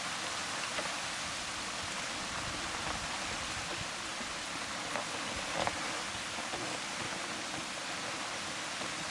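Steady heavy rain falling and pattering on surfaces, an even hiss throughout, with a faint brief sound about five and a half seconds in.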